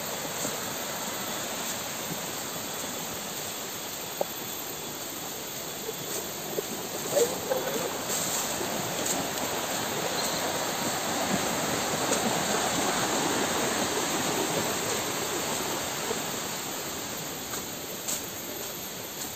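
Rushing water of a rocky river running over rapids, a steady rush that grows louder midway and eases toward the end, with a few light clicks about seven seconds in.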